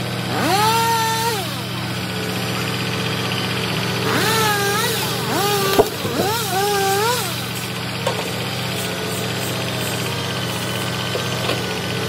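Diesel engine of a Mack grapple-loader truck idling with a steady low drone, revving up several times into a rising, held, then falling whine as the knuckleboom crane's hydraulics work. A single sharp knock comes about six seconds in.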